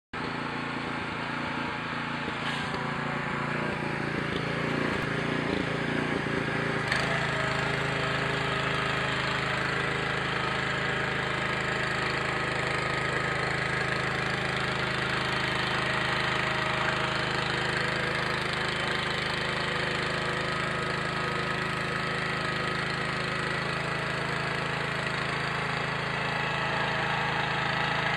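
Bertolini 403 rotary tiller's engine running, a little unevenly for the first several seconds, then holding a steady note.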